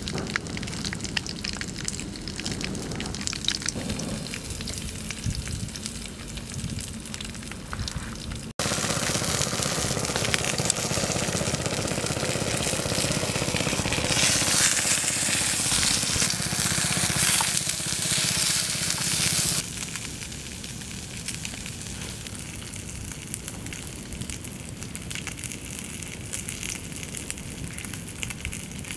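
Small wood fire crackling and hissing under a fish cooking on a metal sheet, with scattered pops. About eight seconds in it cuts to a louder, hissier stretch of about eleven seconds, then drops back to a quieter crackle.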